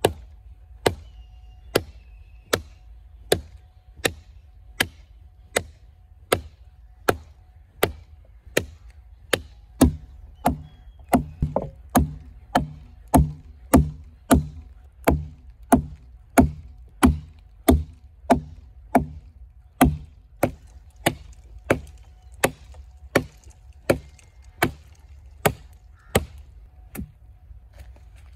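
Large Bowie knife chopping into a fallen tree limb: about forty sharp blows of the blade into the wood, a little under a second apart at first and quicker in the middle, until the limb is cut through.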